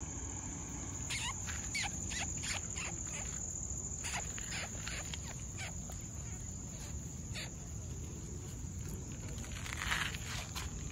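Crickets trilling in a steady high drone, with scattered short clicks and scuffs over it.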